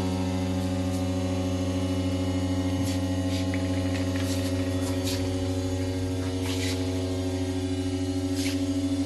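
Steady electrical hum from an idling brick-force wire mesh welding machine, with a few light metallic clinks about halfway through and near the end as wires and the rack are handled.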